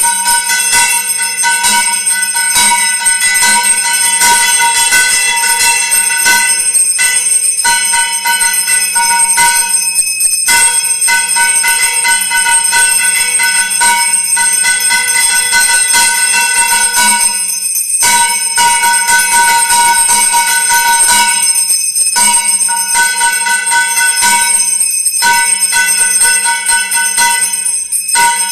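Temple bells ringing rapidly and continuously for the mangalarti, the lamp-waving worship, with a bright metallic clang and a few brief breaks every several seconds.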